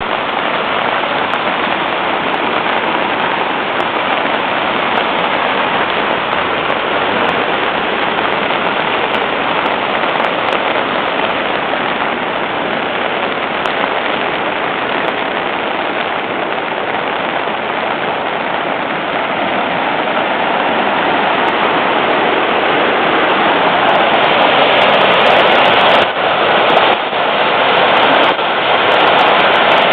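Small brook in flood after a heavy thunderstorm with hail: muddy water rushing and churning over rocks and stumps as a steady noise, getting louder about twenty seconds in.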